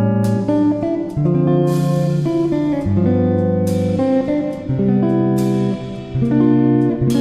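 Background music led by a guitar, with plucked and strummed chords changing every second or so.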